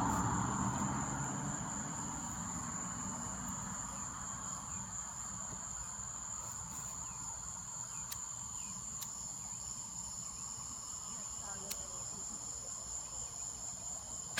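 A steady, high-pitched chorus of crickets or similar night insects, with a few faint clicks.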